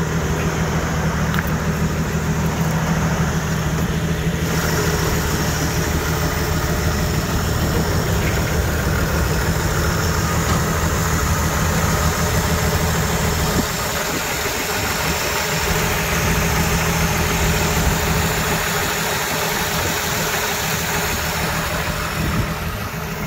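Gasoline baggage tractor's carbureted inline engine idling steadily. The sound turns brighter about four seconds in, as the engine cover is opened.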